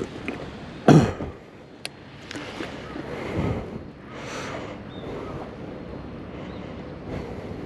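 Wind on the microphone over open water by a seawall, with a loud bump about a second in and a short sharp click just before two seconds, from handling of the rod and baitcasting reel.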